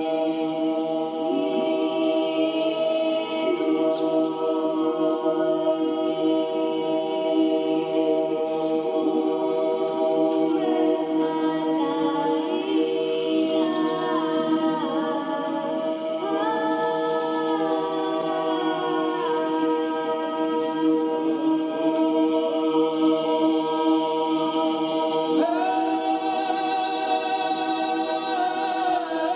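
A cappella vocal music: several voices singing long held notes over a steady drone, with a slow melody shifting above them.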